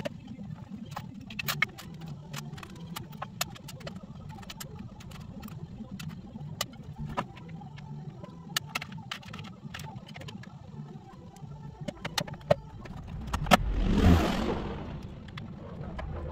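Plastic dash trim and radio being worked loose by hand: scattered sharp clicks and rattles, with a louder scraping clatter about fourteen seconds in, over a steady low hum.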